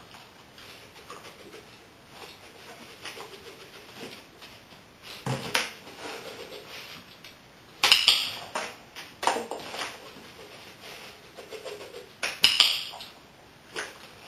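Dog-training clicker clicking several times, a few seconds apart, the loudest clicks about eight and twelve seconds in; each click marks the dog putting a paw into the box.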